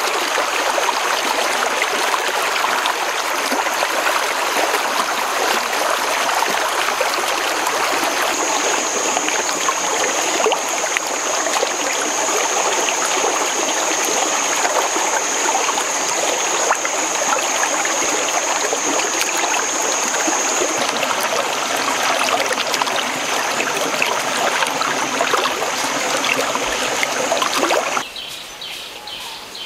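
Shallow stream running and babbling over rocks, a steady rushing trickle of water. A thin, steady high-pitched whine sits above it. The water sound cuts off suddenly near the end.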